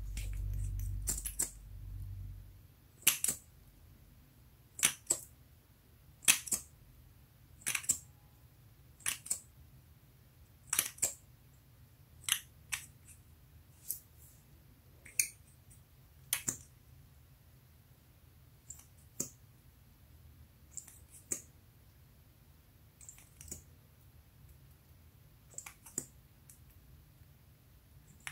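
Short sticky clicks, roughly one every one to two seconds, as a lip gloss wand is pressed and drawn across a sheet of clear slime, with a low rumble of handling in the first two seconds.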